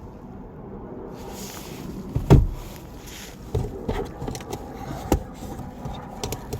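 A heavy thump about two seconds in, then several lighter knocks and clicks, over a steady background noise.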